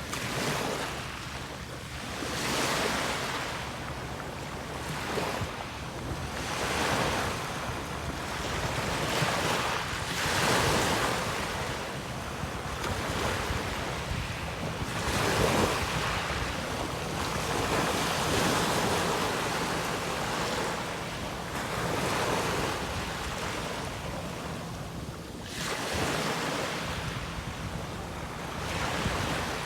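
Sea waves breaking and washing up the shore, a fresh surge of surf every two to four seconds over a steady wash.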